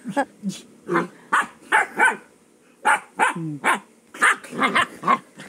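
Husky puppy play-barking and yipping in about a dozen quick short bursts while wrestling with a person's hand, with a brief pause about halfway through.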